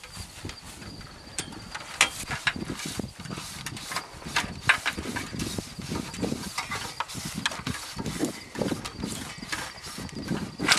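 Hand tools clicking and knocking irregularly as copper ground wire is cut and fastened with wire cutters and crimpers, with low thuds in between.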